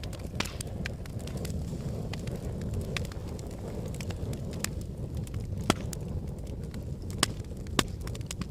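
Wood fire burning in a fireplace: a steady low rush of flames with sharp crackles and pops scattered throughout. The loudest pops come about two-thirds of the way in and twice near the end.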